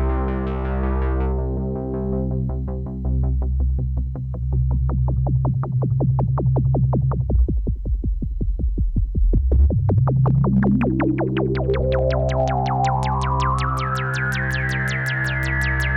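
Analog polyphonic synthesizer, a Jupiter-8 clone, playing a fast run of short repeated notes over a held low chord. Its resonant filter sweeps down until about nine seconds in, then opens back up into a bright high peak that it holds near the end.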